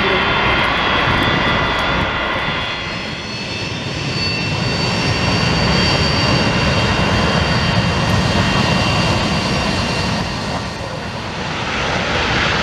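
Boeing 727-214F's three hush-kitted Pratt & Whitney JT8D-17A turbofans at takeoff power during the takeoff roll: a loud, continuous jet roar with a high steady whine over it. The roar dips briefly about three seconds in and again near the end.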